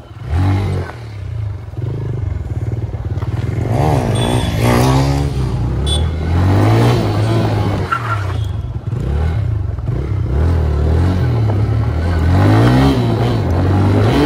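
TVS Raider 125's single-cylinder engine heard from the saddle while riding, its revs climbing and dropping back again and again as the rider accelerates and eases off, over a steady rush of wind and road noise.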